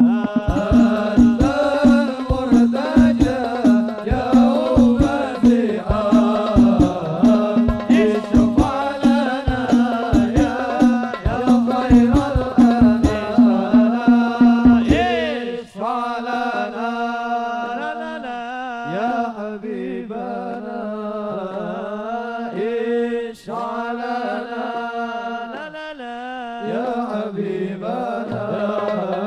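Hadroh ensemble performing sholawat: male voices singing into microphones over frame drums (rebana) beating a steady, fast pattern. About halfway through the drums stop and the singing carries on over a steady low held note, with the drums coming back near the end.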